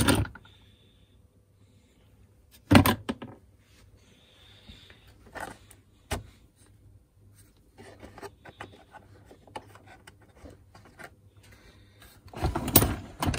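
Hard plastic knocks, clicks and rubbing as things are moved about in a plastic tool case, with a loud clatter about three seconds in and a longer one near the end.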